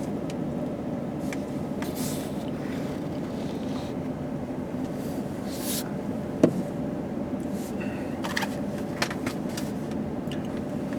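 Steady hum inside a car with the engine running, and a single sharp click about halfway through.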